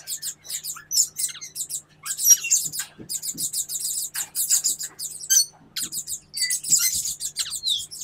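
Caged parakeets chirping: many short, high calls in quick succession, often overlapping.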